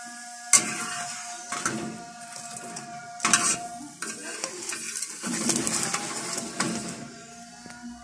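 Makki ki roti (corn-flour flatbread) sizzling on a flat iron tawa, with sharp scrapes and clinks of a metal spatula against the griddle and plate. The loudest strokes come about half a second in and about three seconds in.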